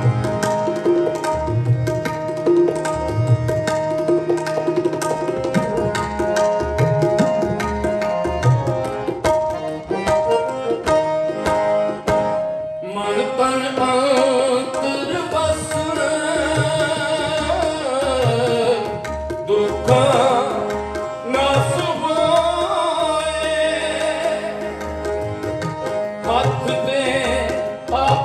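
Sikh shabad kirtan: harmoniums holding steady chords while a tabla keeps a quick rhythm. After a short break about halfway through, voices come in singing over them.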